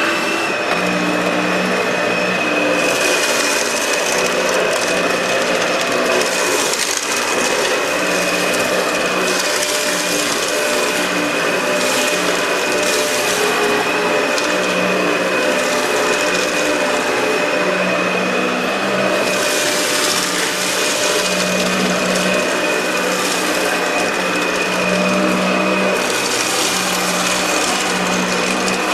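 Dyson DC65 ball upright vacuum cleaner running on carpet, with a steady high motor whine, picking up potting soil worked into the carpet. The hiss of air and brush swells and eases several times as it is worked over the carpet.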